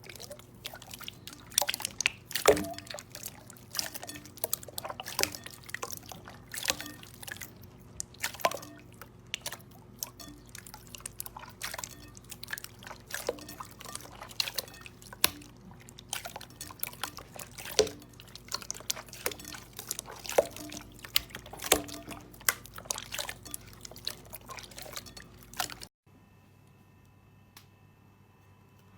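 Slime being handled, squeezed and poked, making a quick irregular run of wet clicks and pops that stops suddenly near the end.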